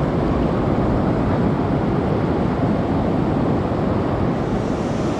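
River rapids on a high-medium river: white water pouring over a rock ledge, a steady loud rush with a ragged low rumble.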